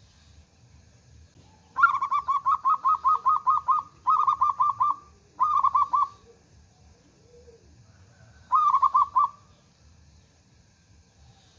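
Zebra dove (perkutut) singing: rapid runs of short, repeated cooing notes, first a long run of about a dozen notes, then two short runs soon after, and one more short run near the end.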